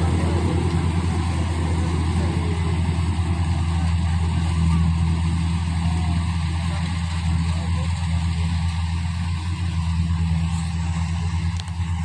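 Rice combine harvester's engine running with a steady low drone as the machine works through the paddy.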